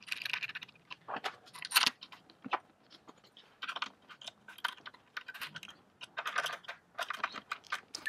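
Hex key turning the socket screws of a metal chassis clamp as they are done up: irregular runs of small clicks and light scrapes.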